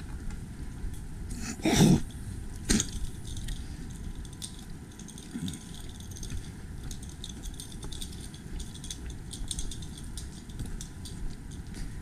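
Rustling and crackling of a hiker moving through brush on rough, trail-less ground, with a louder scrape about two seconds in and a sharp click just after it, then scattered light crackles.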